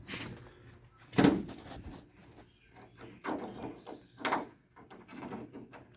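Door lock cylinder and its retaining clip being worked out of a 1986 Ford F-150 door: a series of knocks and rattles of metal against the door shell, the loudest about a second in.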